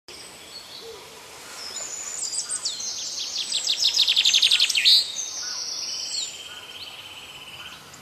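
Songbirds singing: a fast trill of rapid high repeated notes builds to its loudest about five seconds in and stops, then a softer, lower buzzing trill runs on.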